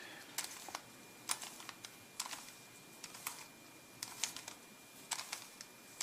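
Faint clicks of a 3x3x3 Rubik's Cube's plastic layers being turned by hand, one click for each face turn, about one every half second to second, as an eight-move corner algorithm is carried out.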